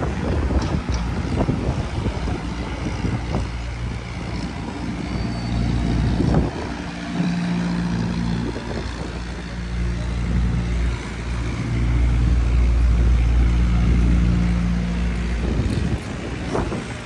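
A large engine running with a steady low drone, growing louder about twelve seconds in.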